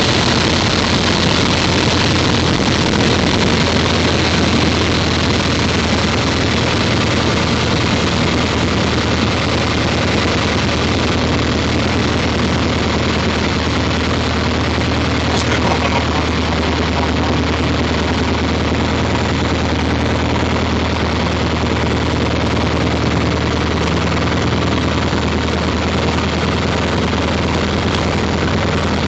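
Cessna 150M's Continental O-200 four-cylinder engine idling at low power through the landing rollout and taxi, heard inside the cabin. A steady, even drone.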